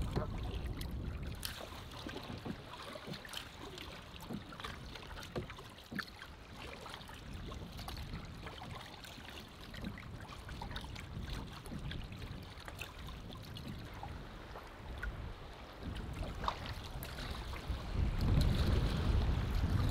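A canoe being paddled: the paddle dips and water drips and splashes in scattered small clicks over a steady wash of water. A louder low rumble of wind on the microphone comes in near the end.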